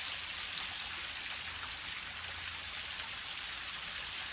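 Steady hiss of water running along a narrow stone-lined channel, with a few faint ticks.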